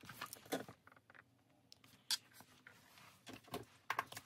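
Pages of a ring binder being flipped and handled, giving a few short, separate paper rustles and light taps.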